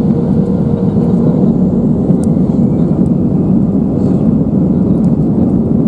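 Airbus A320-200 airliner heard from inside the passenger cabin: its jet engines and airframe make a loud, steady noise.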